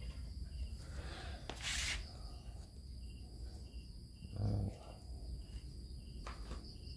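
Insects chirping faintly in the background, a short chirp about twice a second, with a brief rustle about two seconds in and a short low sound around four and a half seconds in.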